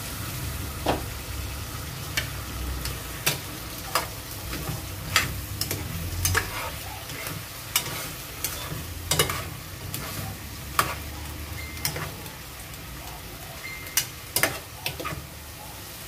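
A spatula knocking and scraping against the pot as chicken pieces are stirred, a dozen or so sharp irregular clacks, over a steady low sizzle of the chicken cooking off its juices.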